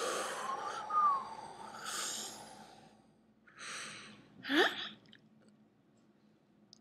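A person making breathy whooshing sound effects with the mouth, a few puffs in a row, with a short whistled tone about a second in and a quick rising squeak-like glide past the middle.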